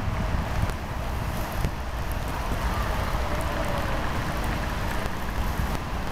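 Outdoor ambience of wind rumbling on the microphone over a steady hiss of light rain.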